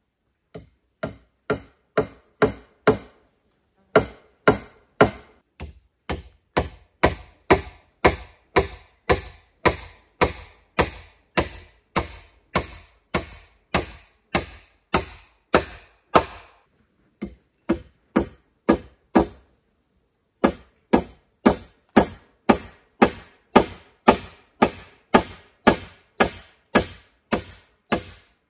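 Steady blows of a tool striking wood, about two a second, the first few soft and growing louder, with three short pauses in the run.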